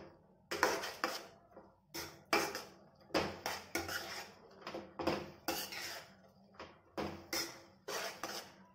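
Steel spoon scraping and stirring roasted oats and diced vegetables in a non-stick wok, in repeated short strokes about one a second.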